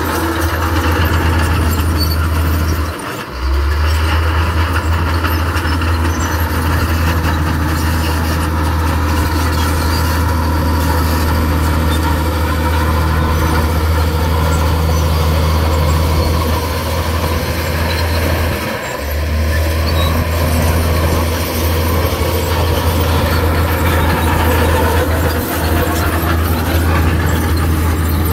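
Heavy diesel earthmoving machinery running steadily under load, a constant low engine sound with mechanical noise over it. The sound briefly drops out about three seconds in and again near the nineteen-second mark.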